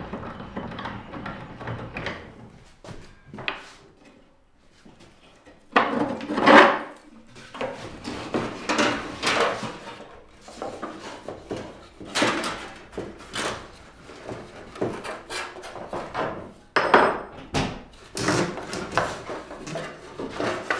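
Thin bent wooden guitar side and the thin sheets layered with it being unclamped and lifted off a Fox-style side-bending form: irregular scraping, rustling and knocking of wood and sheet material. The loudest clatter comes about six seconds in, with further bursts later on.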